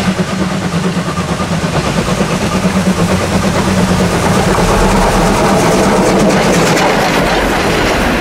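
D51 498 steam locomotive and its train running past at close range, a dense pulsing mechanical noise with rail clatter. It grows louder about halfway through as the train comes closest, with a deep rumble added.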